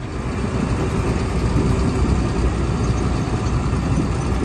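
A tracked dumper's diesel engine running as the machine drives past, with a steady low rumble and the noise of its tracks.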